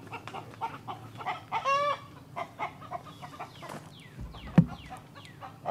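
Backyard chickens clucking in short repeated notes, with one louder squawk a little under two seconds in. A single sharp thump comes near the end.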